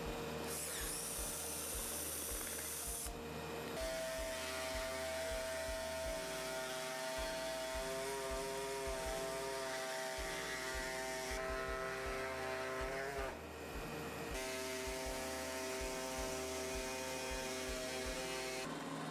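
Small handheld electric power tool cutting: a steady buzzing whine whose pitch sags a little under load. It starts about four seconds in and stops briefly about two-thirds of the way through before running again.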